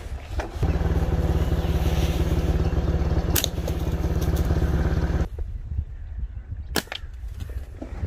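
A motor engine running steadily with an even, rapid pulse, which stops abruptly after about five seconds. Two sharp cracks cut through, one in the middle and one near the end.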